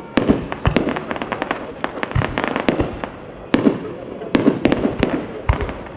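Fireworks going off: an irregular run of sharp bangs and pops, several a second, with crackling between them and a few deeper booms among them.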